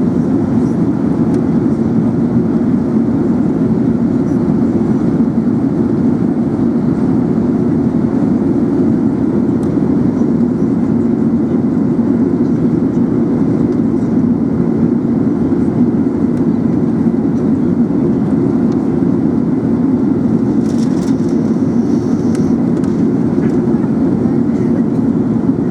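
Steady cabin noise of an Airbus A380 airliner in flight: an even, low rumble of engines and airflow that holds constant. A few faint ticks sound about three quarters of the way through.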